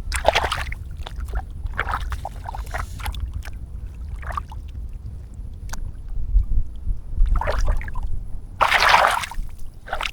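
Water splashing and sloshing in short bursts as a fish trap is handled in a shallow pond, the loudest splash about nine seconds in, over a steady low wind rumble on the microphone.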